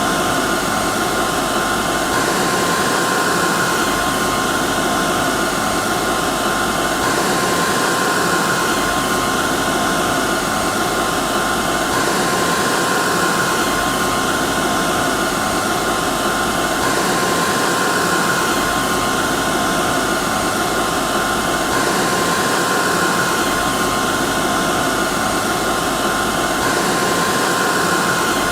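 Hair dryer running continuously: a steady rush of blown air with a constant high whine from the motor and fan. The same short recording repeats about every five seconds without a break.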